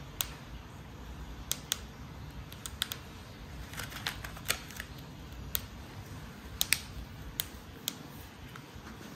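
A Syrian hamster gnawing a small, fairly hard round biscuit held in its paws. It makes sharp, crisp crunching clicks at an irregular pace, some coming in quick little clusters.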